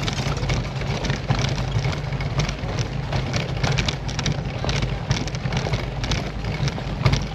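Road bike rattling over cobblestones: a dense, irregular clatter of knocks from the frame and wheels, with a steady low wind rumble on the microphone.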